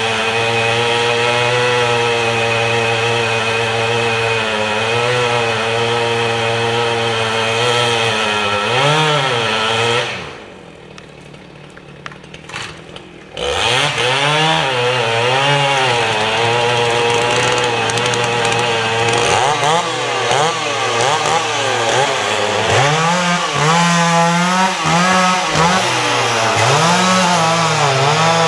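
Two-stroke chainsaw cutting into the trunk of a large red fir snag during felling. The saw runs at a steady high speed at first, drops away to a much quieter sound for about three seconds, then comes back with its engine speed rising and falling repeatedly as the bar works through the wood.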